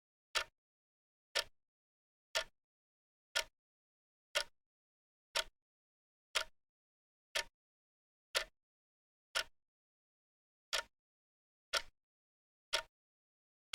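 Clock ticking about once a second, each tick a short, sharp click with dead silence between, and one slightly longer gap about two-thirds of the way in.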